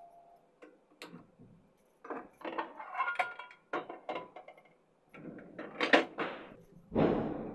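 Metal cookware and utensils clattering and clinking as a kadhai is set on the stove and things are handled, with scattered knocks, a loud clank about six seconds in, and a short rush of noise near the end.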